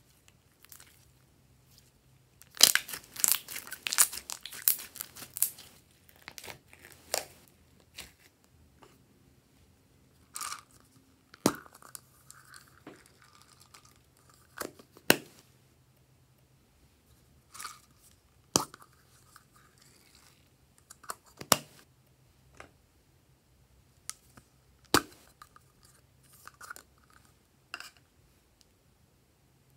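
Glossy slime being stretched and pulled apart by hand, a dense run of crackling, tearing sounds about three seconds in, followed by scattered single sharp clicks and taps as plastic pots and bottles of ingredients are handled over the trays.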